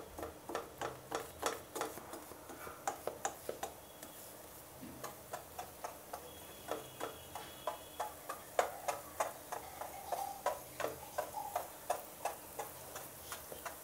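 A metal fork pricking raw pizza dough in a non-stick frying pan, its tines clicking against the pan through the dough in a long, uneven series of light taps, a few a second. The dough is being docked so that it does not puff up as it cooks.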